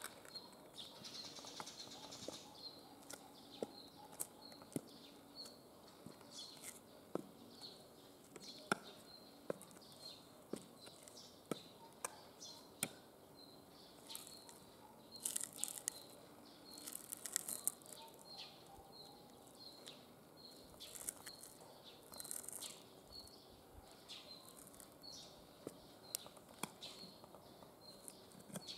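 Platform high heels tapping and scraping on a gritty concrete floor: scattered sharp clicks of the heels and soles, with a few short gritty scuffs about halfway through. Behind them a bird repeats a short high chirp in an even rhythm.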